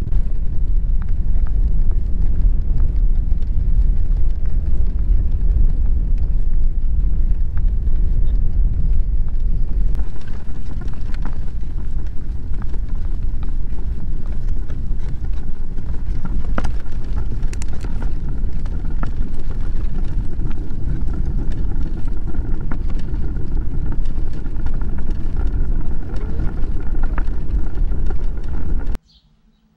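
Wind rumbling over the microphone of a bicycle-mounted action camera while riding on a paved road, with faint scattered clicks. The low rumble eases a little about a third of the way in, and the sound cuts off shortly before the end.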